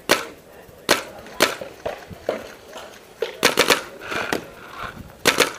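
Paintball markers firing: about a dozen sharp pops, some single and some in quick bursts of two or three.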